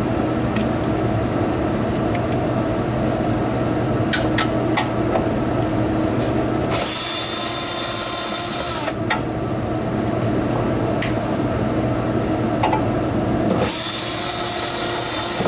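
Cordless drill/driver spinning screws on a cooler's condenser housing, in two runs of about two seconds each, one about seven seconds in and one near the end, each with a steady motor whine. Between the runs there are a few light clicks of metal parts over a steady background hum.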